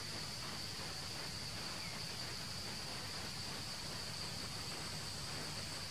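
Forest insects droning steadily at one high pitch over an even hiss.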